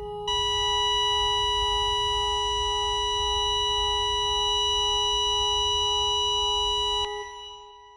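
A steady high electronic tone, a heart-monitor flatline sound effect, held for about seven seconds over a low rumble, then cutting off and fading out.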